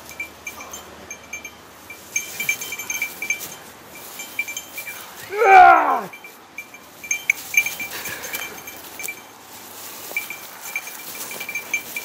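A small metal bell tinkling on and off, the kind worn by hunting dogs. About five and a half seconds in comes one loud, drawn-out cry that falls steeply in pitch.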